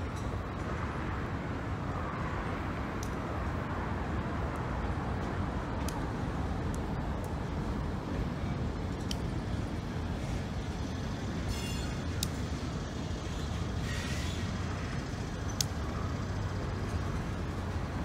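Slow-moving freight train: the diesel locomotive's engine running with a steady low rumble as the cars roll over the track, with a few scattered clicks. A brief high squeal about two-thirds of the way through, followed shortly by a short hiss.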